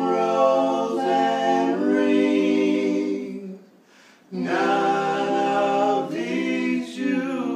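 Three men singing a cappella in harmony, holding long drawn-out notes in two phrases with a short breath about four seconds in.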